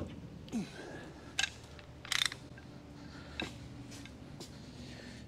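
Metal clicks and clinks of a wrench working a leveling screw on a lathe, to lower the high side of the bed: a few sharp ticks about a second apart, with a short rattle of clinks just after two seconds. A low steady hum runs underneath.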